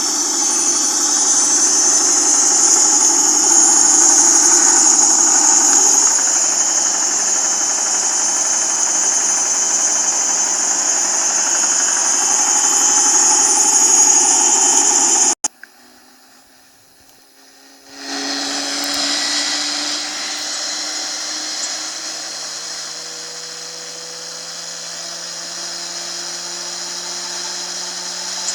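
Aircraft jet engine running steadily with a strong high whine. About fifteen seconds in it cuts off abruptly, and after a short quieter stretch a washing machine's spin cycle takes over, its motor whine rising slowly in pitch as the drum speeds up.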